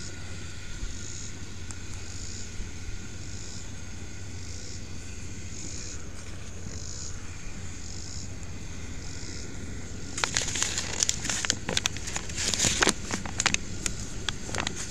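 Paper flour bag crinkling and rustling as it is handled close to the microphone: a dense run of crackles starting about ten seconds in and stopping just before the end, over a steady low background.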